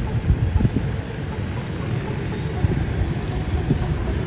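Wind buffeting the microphone: a loud, low, gusty rumble with irregular pops.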